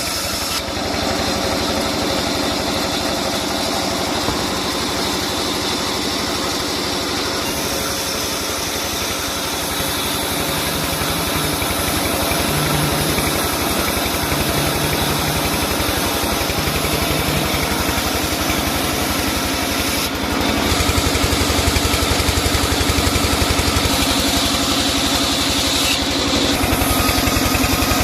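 Sawmill engine running steadily with an even firing rhythm, getting somewhat louder about three-quarters of the way in.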